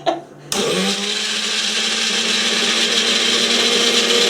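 Electric blender switched on about half a second in: its motor spins up, then runs steadily, growing slightly louder, mixing egg whites and sugar for meringue.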